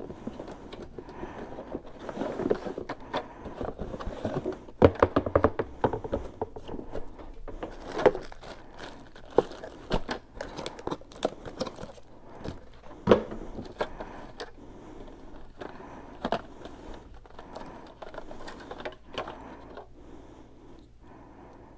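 A Bluetooth motorcycle helmet headset being unboxed by hand: cardboard box and plastic bags crinkling and rustling, with irregular clicks and knocks as parts are handled and set down. The noise is busiest in the first half and thins out near the end.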